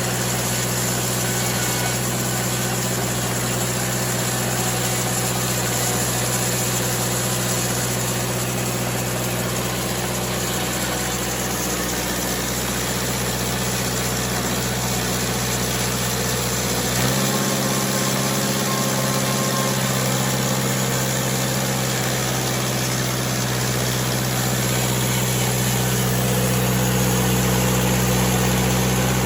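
Sawmill engine running steadily, its pitch shifting and settling about halfway through.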